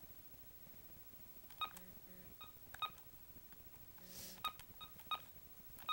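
A phone's keypad beeping as a toddler presses its buttons: about seven short, faint beeps of one pitch at irregular intervals, with a brief soft hiss a little after halfway.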